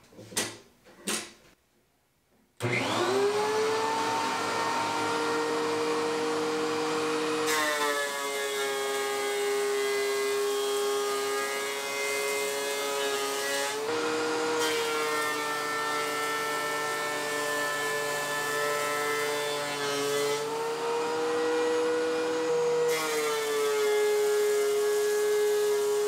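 DeWalt 735 thickness planer switching on with a sudden steady whine. From about seven seconds in, a 4x4 is fed through and the cutterhead cuts it: the sound grows fuller and the motor's pitch drops slightly under load, shifting again near 14, 20 and 23 seconds as the board goes through. Two short knocks come before the motor starts.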